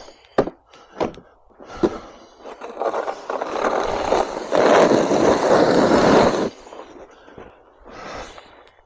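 Snow shovel knocking on the pavement three times, then pushed in a long scrape through packed snow and ice for about four seconds, with fainter scraping after.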